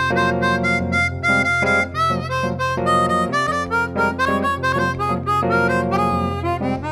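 Chromatic harmonica playing a quick, ornamented melody over a held bass and chordal accompaniment.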